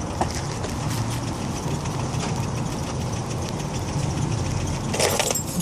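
A car engine idling steadily. Near the end, a short rattle and a sharp click as the door handle is pulled and the latch releases.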